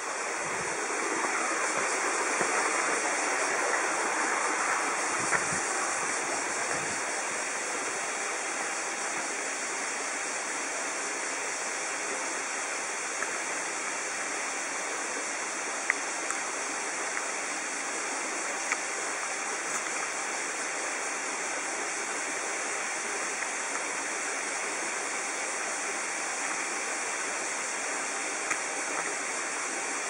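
Steady rushing noise, as of running water, a little louder for the first several seconds, with a few faint ticks.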